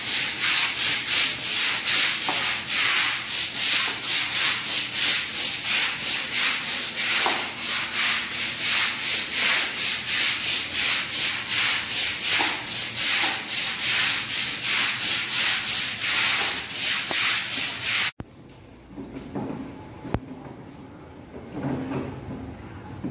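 Stiff long-handled floor brush scrubbing a wet tiled floor in quick, even back-and-forth strokes. The scrubbing stops suddenly with a few seconds to go, leaving only faint scattered knocks.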